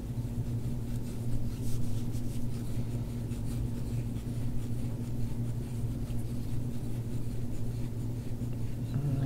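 Gua sha tool scraping over skin in repeated short strokes, over a steady low hum.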